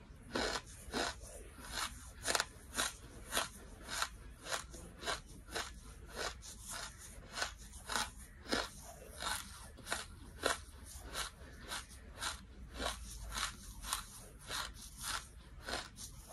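Close-miked chewing of a mouthful of crunchy charcoal: a steady rhythm of crisp crunches, roughly three every two seconds.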